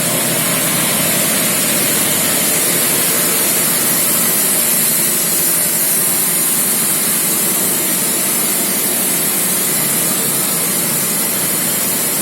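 Schulz piston air compressor running steadily, with a loud, even hiss of air over the motor.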